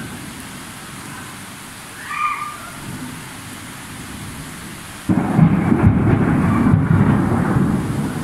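Thunderstorm with rain hissing steadily, then a sudden loud peal of thunder about five seconds in that rolls on as a deep, crackling rumble.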